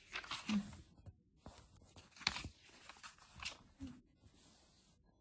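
Glossy paper catalogue pages rustling and being turned by hand, with a few crisp crackles of paper about half a second, two seconds and three and a half seconds in.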